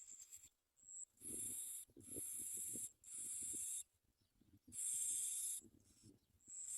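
Bar-winged prinia nestlings begging in the nest: a run of harsh, hissing high-pitched bursts, each about half a second to a second long, five or so with short gaps, over faint rustling.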